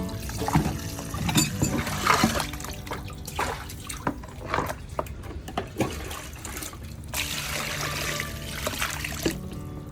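Water splashing and trickling in a run of irregular short bursts, as food is handled in water.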